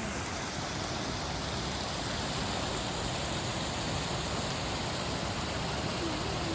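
Steady rush of a river in heavy flood, running at about 22,000 cubic feet per second.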